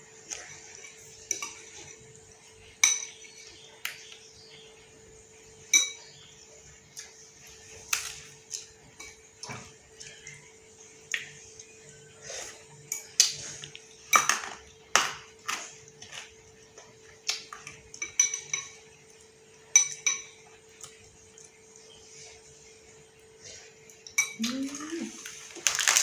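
Spoon and fork clinking and tapping against a bowl of instant noodles while eating, in sharp irregular strikes, some with a short metallic ring.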